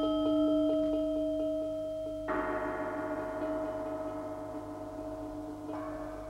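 Gongs and metal percussion, struck and left ringing. A held ringing tone carries a quick run of soft taps, then about two seconds in a new gong stroke adds many ringing tones that slowly fade. Another softer stroke comes near the end.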